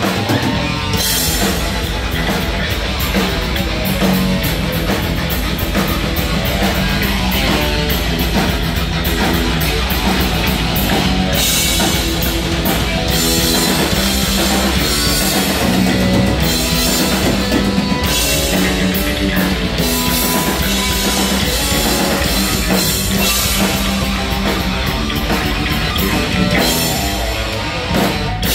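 Heavy metal band playing live and loud: distorted electric guitar leading over a drum kit, steady and without vocals.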